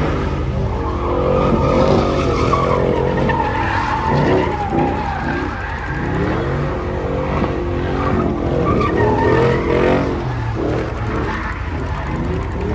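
Car tires squealing in a sustained skid while the engine runs hard, the squeal wavering up and down in pitch.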